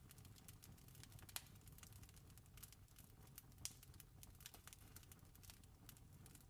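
Campfire crackling faintly, with irregular sharp pops and snaps over a low steady rumble; two pops stand out, about one and a half seconds and three and a half seconds in.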